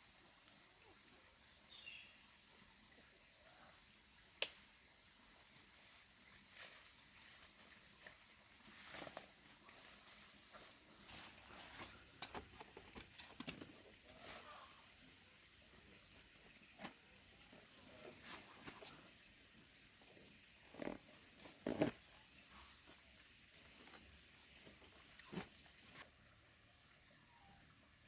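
Faint, steady chirring of insects, likely crickets, in a high pulsing drone. Scattered short knocks and clicks come over it, the sharpest about four seconds in and a cluster around the middle and later on.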